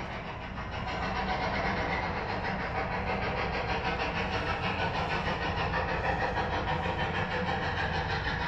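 Steady mechanical running noise with a fast, even flutter over a low hum.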